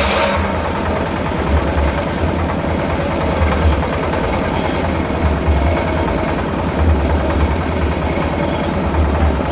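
Engine driving a circular sawmill, running steadily at idle with a low, rhythmic throb. A louder hissing noise stops just after the start, most likely the end of a cut.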